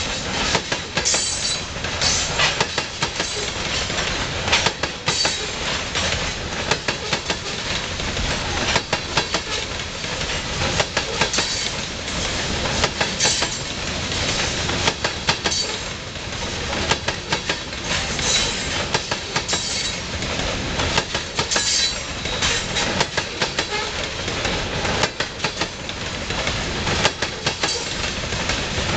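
Loaded grain covered hopper cars rolling past, their wheels clicking over the rail joints in a continuous clickety-clack over steady rolling noise.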